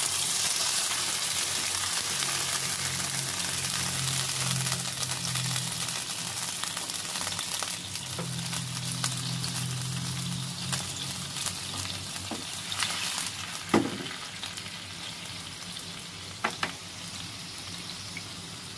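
Soy-based sauce sizzling and bubbling in a hot grill pan around frying boneless chicken thighs, the sizzle slowly dying down. Two sharp taps, chopsticks against the pan, come in the second half.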